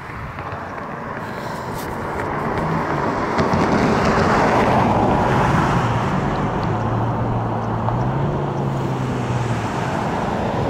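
A motor vehicle's engine running with road noise. It grows louder over the first four seconds or so and then holds steady, with a low engine hum that rises slightly in pitch near the end.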